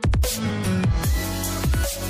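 Electronic dubstep-style background music with heavy falling bass drops and a steady beat.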